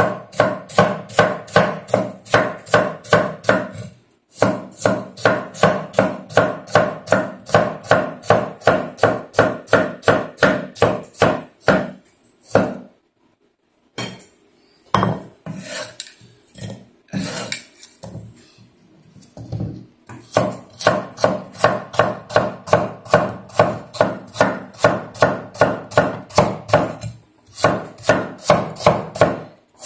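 Chinese cleaver slicing celtuce stems on a wooden chopping board: quick, even chops at about three a second. About a third of the way in the chopping stops, there is a brief quiet, then a few scattered knocks, before the steady chopping resumes.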